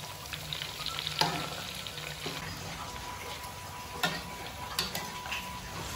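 Breaded chicken nuggets deep-frying in a wok of hot oil: a steady sizzle. A few sharp metal knocks, about a second in and twice near the end, as a metal spatula and a wire strainer stir and scoop the pieces against the wok.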